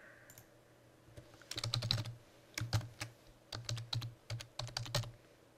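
Computer keyboard typing: irregular runs of key clicks that start about a second and a half in and stop shortly before the end.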